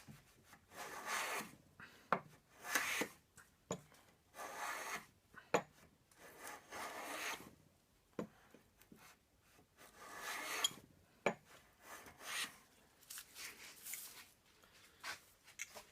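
Low angle block plane, used straight out of the box, taking a series of strokes across timber: about eight rasping cuts, one every second or two, with a few sharp knocks between them.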